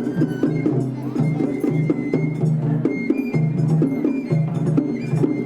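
Japanese festival hayashi music: a high bamboo flute melody over dense, rapid drum and metal percussion strikes.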